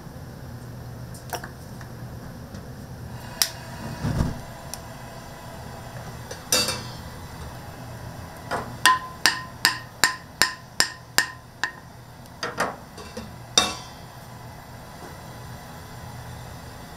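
Metal cookware and utensils knocking in a kitchen: a few separate sharp knocks, then a run of about nine even taps, roughly three a second, each with a short metallic ring, over a steady low hum.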